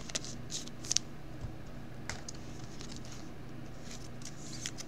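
Faint plastic rustling and light ticks as a trading card is slid into a clear penny sleeve and then into a rigid plastic top loader, over a steady low hum.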